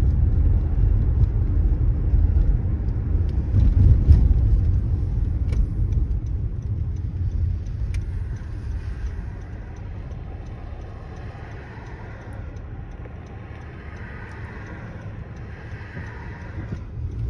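Low, steady rumble inside a car's cabin. It is louder for the first half and drops to a quieter hum about ten seconds in, then swells again right at the end.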